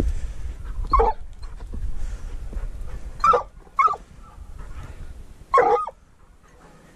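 Hunting dog giving four short, sharp barks a second or two apart, the last one a little longer, while it works a mink gone to ground in rock crevices.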